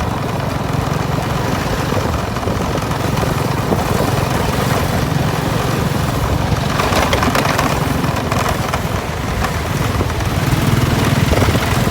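Motorcycle engine running steadily while riding along, with a louder rush of road or wind noise about seven seconds in.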